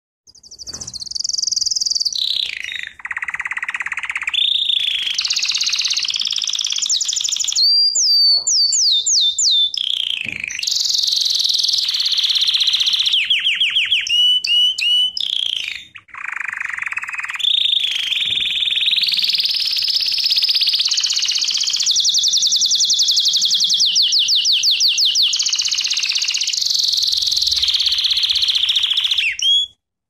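Canary singing one long, high-pitched song of rolling trills, glides and fast runs of repeated notes, with brief breaks about three, ten and sixteen seconds in.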